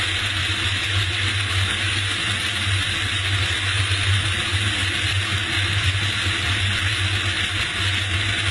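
Steady rush of airflow and jet engine noise heard from a camera under an airliner's fuselage in flight, over a deep steady hum, as the main landing gear extends into the airstream.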